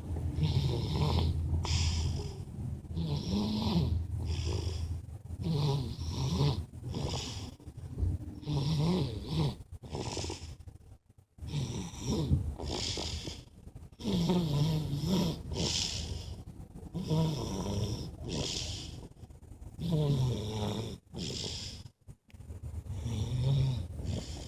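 A sleeping person snoring, the snores and breaths following one another about once a second, with two brief gaps, about halfway through and near the end.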